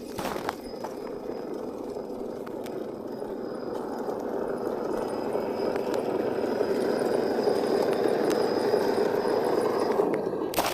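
Electric motor and gear drivetrain of an RC rock crawler running under load, a steady whirring that grows louder through the middle, with a sharp knock near the end.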